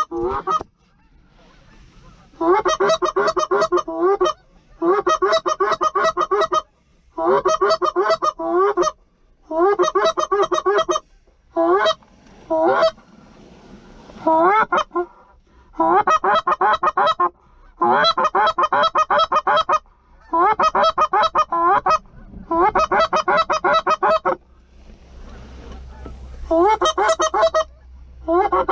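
Canada goose call blown from the hunting blind: about a dozen quick runs of loud, rapid honks, each a second or two long with short pauses between, to draw passing geese toward the decoys.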